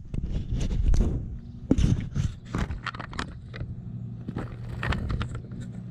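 Irregular clicks, knocks and scrapes of metal carburetor bodies and linkage being handled and pushed together on a wooden bench as a motorcycle carburetor bank is reassembled, over a steady low hum.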